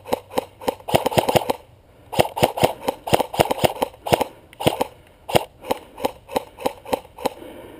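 Airsoft guns firing: sharp cracks as single shots and short rapid strings of several shots a second, going on through the exchange.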